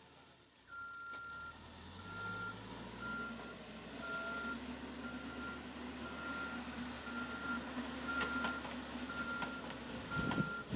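Backhoe loader reversing: its backup alarm beeps about once a second over the steady hum of its diesel engine. A louder low rumble comes near the end.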